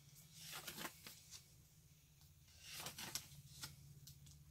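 Paper pages of a disc-bound planner being turned and handled: soft paper rustles, once about half a second in and again around three seconds in, over a faint low hum.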